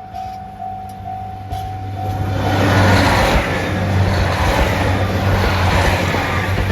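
Japanese level-crossing bell ringing at about two strikes a second. A little over two seconds in, a diesel train reaches the crossing and passes, its rumble and wheel noise with a low engine hum drowning out the bell.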